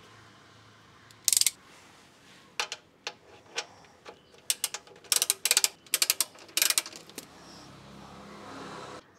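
Socket wrench ratchet clicking in several short runs as the 14 mm oil drain plug is worked loose for an oil change.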